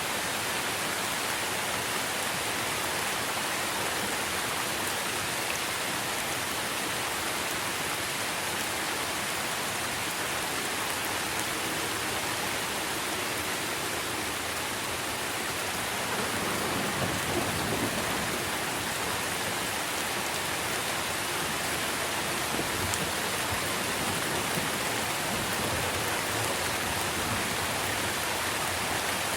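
Steady rain falling on trees, an even hiss of drops. About halfway through, a low rumble of thunder sets in under the rain.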